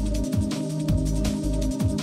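Electronic background music with a driving drum beat and deep bass notes that slide down in pitch.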